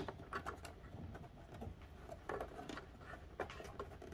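Faint, scattered clicks and rustles of hands handling wires and connectors inside a plastic electrical enclosure.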